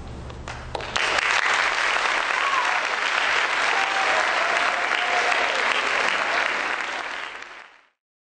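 Large audience applauding: a few scattered claps come in over the dying end of a piano chord, swelling to full, steady applause about a second in, then fading out quickly near the end.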